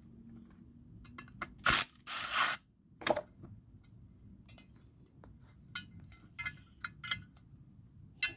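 Small metal parts and tools being handled: clinks and knocks, with one loud knock and a short scrape about two seconds in, then a run of light clinks near the end.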